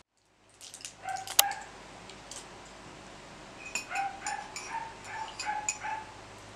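A metal spoon stirring in a ceramic mug, clinking against the side about seven times in two seconds, each clink with a short ringing tone. A sharp click comes about a second and a half in.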